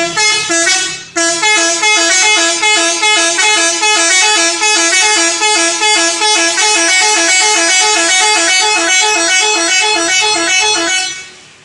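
Indonesian bus 'telolet' multi-tone air horn playing a fast, repeating melody of short notes. It is loud and runs for about eleven seconds, with a brief break about a second in, then stops near the end.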